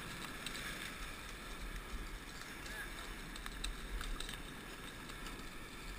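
Ocean surf washing over shoreline rocks, a steady wash of noise, with a few faint clicks.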